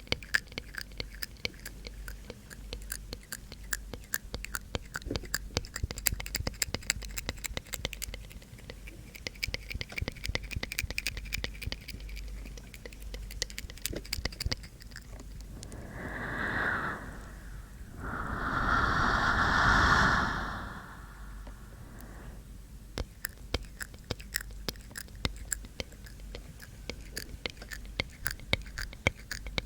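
Close-up mouth sounds: rapid wet clicks and tongue taps ('tk tk') right at the microphone, broken a little past halfway by two breathy exhalations, the second longer and louder, before the clicking resumes.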